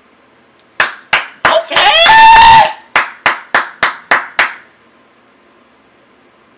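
A person clapping hands excitedly about a dozen times, roughly three claps a second, with a loud held vocal shout in the middle of the clapping.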